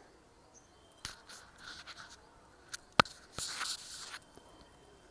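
Rustling and small clicks of a thin name-pendant chain being handled and put on around the neck, with one sharp click about three seconds in and a burst of rustling just after.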